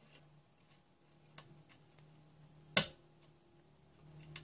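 A few sharp clicks and light taps of small metal tools working on an LED board with a soldering iron, one click much louder than the rest about three seconds in, over a faint steady hum.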